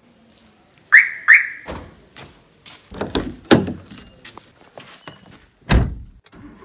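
A Hyundai i10's alarm gives two quick chirps as the key fob remote unlocks it. Then the door latch clicks and rattles as the door opens and someone climbs in, and the driver's door shuts with a heavy thunk near the end.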